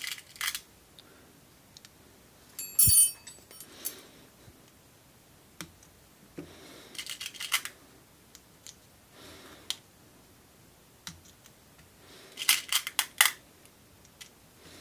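Clicking and clinking of an air rifle's rotary pellet magazine being handled and loaded by hand. One sharp metallic clink with a brief ring about three seconds in, and quick runs of small clicks around seven seconds and again near the end.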